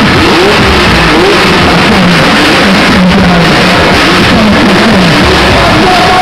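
Several dirt bike engines revving in repeated short throttle blips that rise and fall in pitch, overlapping one another, loud.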